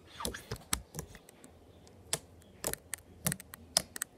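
Fingers pressing and squishing blue fluffy slime made with shaving cream, giving an irregular series of sharp sticky clicks and pops.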